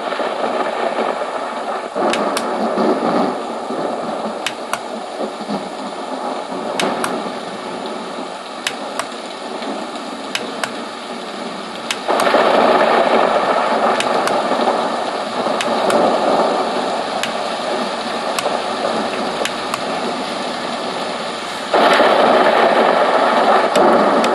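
Homedics Sound Spa Rejuvenate white noise machine playing its recorded thunder sound through its small speaker: a steady rushing rumble with little deep bass and faint scattered crackles. It gets louder in steps about halfway through and again near the end as the volume is raised.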